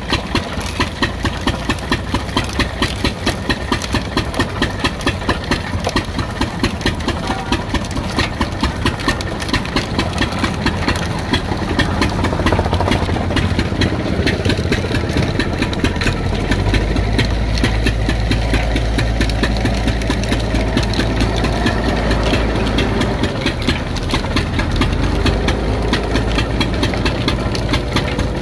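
Engine-driven sugarcane crushing mill running, the engine beating in an even, rapid pulse as the geared rollers turn. The low rumble grows heavier from a little past halfway.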